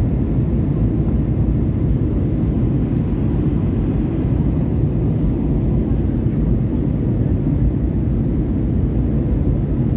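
Jet airliner cabin noise heard at a window seat: a steady, deep drone of the engines and rushing air as the plane descends on approach to land.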